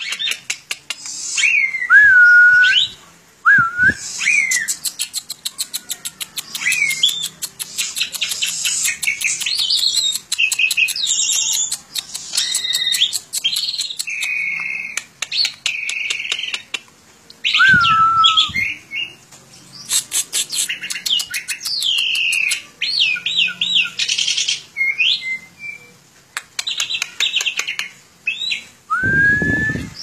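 A caged Asian pied starling (jalak suren) singing a long, varied song: slurred whistles that rise and fall, mixed with fast clicking runs and harsh chattering phrases.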